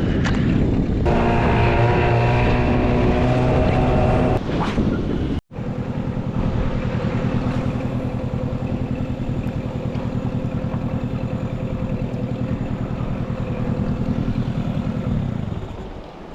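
Boat's outboard motor running under way, steady, with wind and water noise. There is a brief break about five and a half seconds in, after which it runs steadily at a lower pitch, then drops off near the end as it is throttled back.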